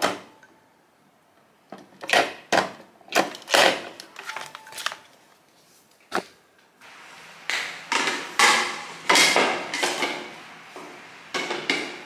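Hard plastic knocking and clacking: a string of sharp knocks, a few at a time. About seven seconds in a steady low background noise joins them, with PVC pipes being handled and fitted together.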